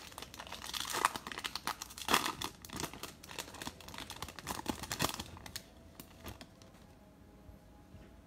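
Plastic wrapper of a baseball card pack being torn open and crinkled, a dense crackling for about five seconds, then only a few light clicks as the cards are handled.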